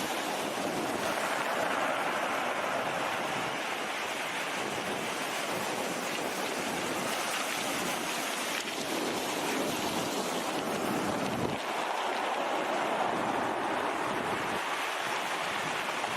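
Sea surf washing with wind on the microphone: a steady rushing noise that swells and eases a little.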